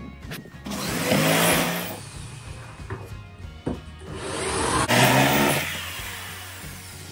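Corded electric drill run twice against a flat-pack chipboard cabinet, each run about a second and a half long, its pitch rising as the motor comes up to speed.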